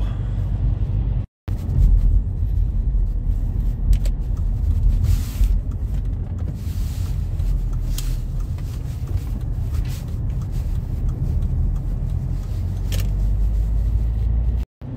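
Alfa Romeo 159 diesel on the move, heard from inside the cabin: a steady low engine and road rumble. The sound cuts out for a moment twice, about a second in and near the end.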